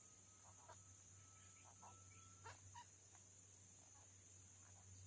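Faint forest ambience: a steady, high-pitched drone of crickets and other insects, with a thin held whistle-like tone that stops about two and a half seconds in and a few short, faint chirps.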